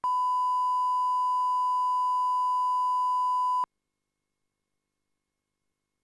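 A steady electronic beep at one pitch, like a test tone, held for about three and a half seconds and then cut off abruptly into silence.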